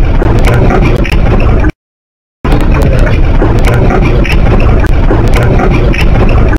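Loud, distorted rumble with crackles on a body-worn camera's microphone, cutting out completely for under a second about two seconds in.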